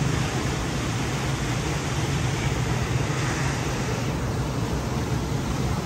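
Steady low hum over an even rushing background noise, with no distinct event standing out.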